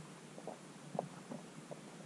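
Underwater sound picked up by a submerged camera: a steady faint hiss with soft, irregular knocks and clicks, several a second, the loudest about halfway through.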